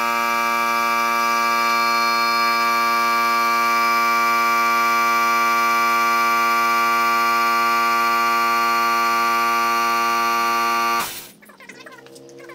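Portable pancake air compressor running steadily to build up tank pressure, a loud even hum that shuts off abruptly about a second and a half before the end.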